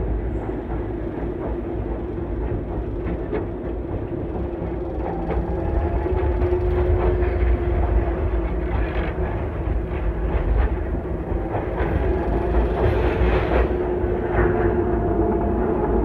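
Docklands Light Railway train running, heard from inside the carriage: a steady low rumble of wheels on rail under a constant motor hum, with scattered clicks. It grows louder about five seconds in.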